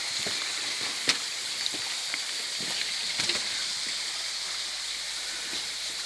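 Steady hiss of rushing water from a small forest stream with little waterfalls, with a few light clicks, a sharp one about a second in.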